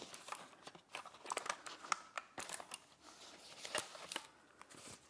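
Cardboard box and packaging being handled: faint rustling and scraping with scattered small clicks and knocks.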